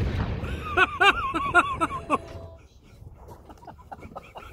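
Low rumble of a 2 lb Tannerite explosion rolling and echoing off the hillsides, fading out over about two seconds, with a high wavering call over it about a second in.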